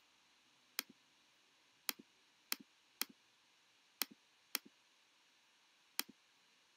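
Computer mouse clicking: seven sharp, unevenly spaced clicks, each a press followed at once by a softer release click.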